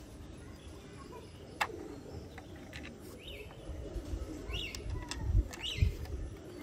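Small birds chirping in the background: short rising-and-falling chirps about once a second from about three seconds in. A single sharp click comes about one and a half seconds in, and low knocks near the end.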